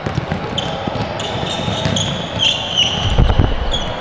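Basketball sneakers squeaking again and again on a hardwood court, with running footsteps and a basketball bouncing, and a few heavier thumps about three seconds in.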